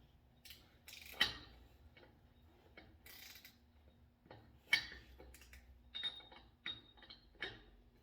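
Irregular metallic clicks and clinks of a wrench and nut working on a Dana 60 front hub's spindle nuts as the outer nut is snugged down. The sharpest clink comes about halfway through.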